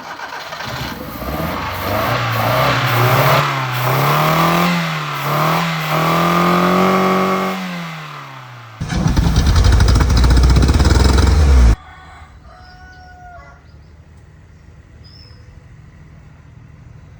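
Restored pickup truck engine running and being revved, its pitch rising and falling several times; then a louder, rough rumble for about three seconds that cuts off suddenly. Afterwards only a faint background with a rooster crowing.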